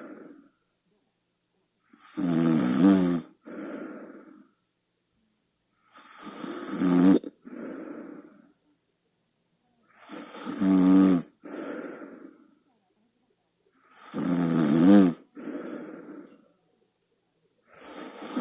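A person snoring, about every four seconds. Each cycle is a loud pitched snore, then a softer, breathier sound, then a pause.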